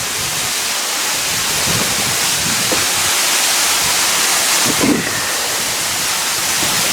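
Waterfall close by, pouring steadily: a loud, even rush of falling water.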